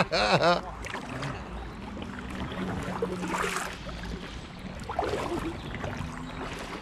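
Kayak paddling on calm water: paddle blades splashing and dripping, with a faint low steady hum. A person's voice is heard briefly at the very start.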